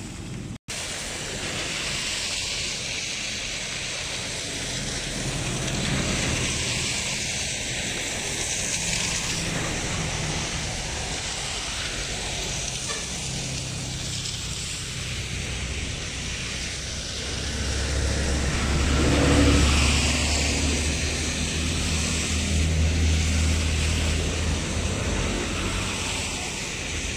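Steady rain hiss with wind buffeting the microphone in typhoon weather; the wind rumble swells and is strongest about two-thirds of the way through.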